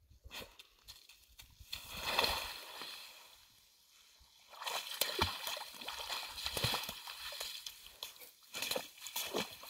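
A golden retriever's paws and muzzle breaking thin ice and sloshing in icy slush water at a hole in a half-melting pond. The sound comes in bursts of crackling and sloshing: one about two seconds in, then a longer stretch from about five seconds in.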